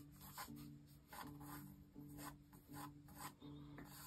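Pencil scratching on paper in a run of short strokes as curves are sketched, quietly, over faint background music.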